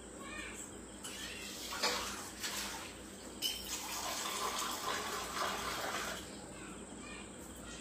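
Water running from the tap of a wall-mounted water purifier into a metal tumbler for a few seconds, stopping about six seconds in, with a couple of clicks from the tap and cup along the way.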